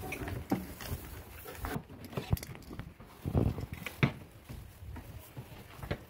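Sheep being drenched, shuffling and jostling in a pen: scattered hoof clatter, small clicks and knocks, with two louder thuds about three and four seconds in.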